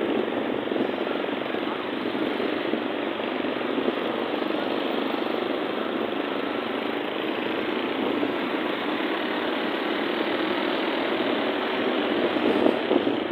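Steady engine and road noise heard while riding in dense city traffic full of motorcycles, with no distinct single event.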